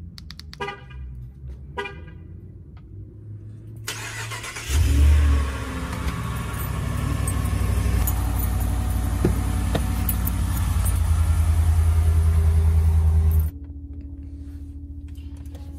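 Ram pickup truck remote-started from its key fob: two short horn chirps, then about five seconds in the engine catches with a loud burst and settles into a steady running sound. It cuts off abruptly near the end.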